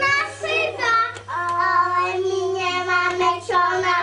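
Young children singing together, holding long sung notes that slide between pitches, over a faint steady low hum.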